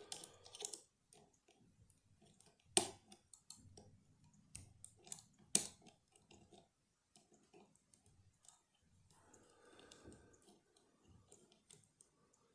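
Metal pick and tension tool working inside a lever challenge lock: faint scattered ticks and scrapes, with two sharper clicks about three and about five and a half seconds in.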